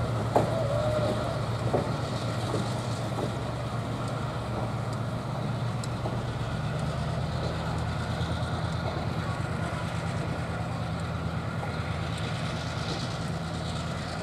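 EMD SW1500 diesel switcher locomotive running with the excursion train as it departs: a steady low engine drone, with a few sharp clicks in the first two seconds.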